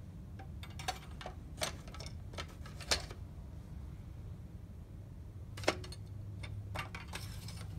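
Scattered clicks and knocks of the yellow plastic dipstick cap being twisted and pulled from a John Deere lawn tractor's engine, over a low steady hum.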